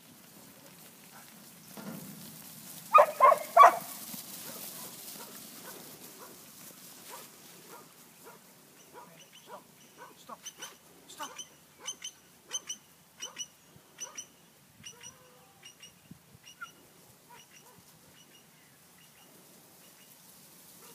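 A working kelpie barks three times in quick succession about three seconds in. Later a run of short, high chirps repeats about once or twice a second for several seconds.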